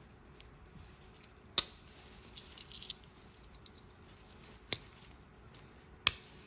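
A small Swiss Army pocket knife being handled: three sharp metallic clicks, with light rattling ticks between the first two.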